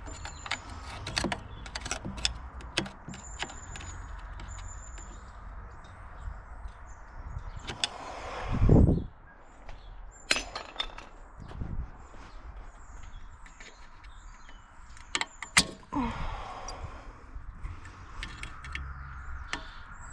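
Hand work in a car's engine bay: irregular clicks, knocks and rattles of tools and plastic parts being worked loose, with one louder scraping thud about eight seconds in and a few short high squeaks.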